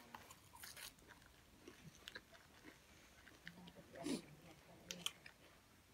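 Faint, scattered chewing and small mouth clicks of people eating fresh pennywort leaves, with a short hummed murmur about two-thirds of the way through.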